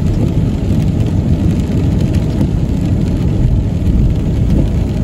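Steady rumble of a car driving on a wet road, heard from inside the cabin, with rain falling on the car.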